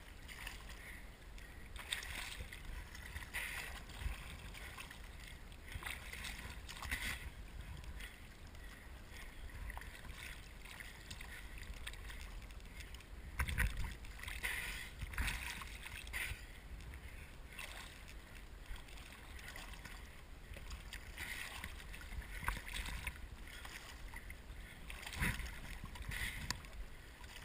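Choppy water lapping and splashing around a swimmer's head at the waterline, with irregular louder splashes every second or two.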